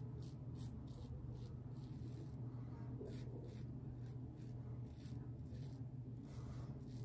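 Mühle R41 open-comb double-edge safety razor scraping through lathered stubble on the neck in short strokes, roughly two rasps a second. A steady low hum runs underneath.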